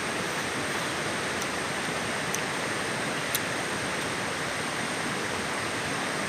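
River water rushing steadily, with a few faint ticks.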